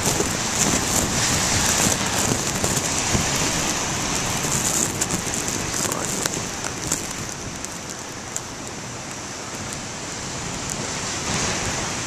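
Rain pattering close on the camcorder's plastic rain cover, over the steady rush of heavy surf breaking on the shore; louder in the first half, easing after about six seconds.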